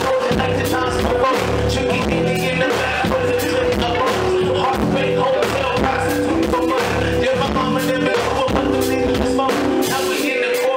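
Live band music with drum kit, electric guitar and keyboard over a repeating bass line, with a voice singing along; the low bass drops out near the end.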